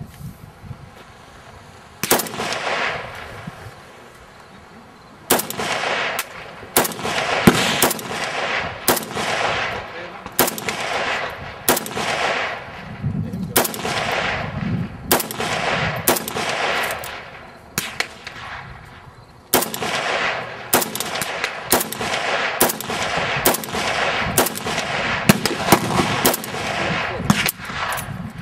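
Kalashnikov AK-103 rifle firing 7.62×39mm rounds semi-automatically: a single shot, a pause of about three seconds, then a long string of about 25 single shots at roughly one a second, each with a long echo.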